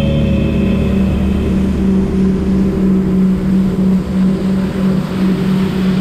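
A watercraft's engine drones steadily at speed, its low hum pulsing slightly and regularly, over the hiss of churning water spray.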